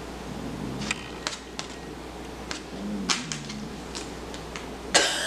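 Light clicks and taps of small gift items being handled, with a louder crinkle of the gift bag as something is pulled out of it near the end.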